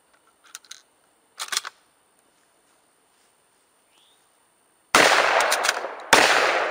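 J.C. Higgins Model 583.17 bolt-action shotgun: a few light metallic clicks as a shell is loaded and the bolt worked, then two loud shots about a second apart, each ringing out, with small bolt clicks between them.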